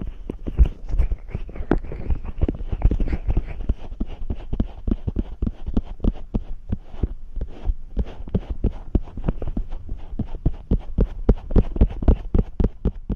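Powdered fingers rubbing and patting close over a microphone's ear in an ear-massage ASMR: quick dry strokes, several a second, each with a low thud.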